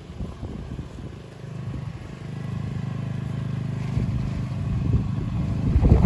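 Small Shturm power generator's engine running steadily, its hum growing louder toward the end.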